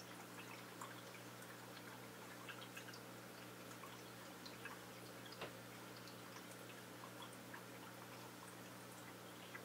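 Quiet aquarium sound: a steady low hum with faint, scattered water drips and ticks, and one sharper click about halfway through.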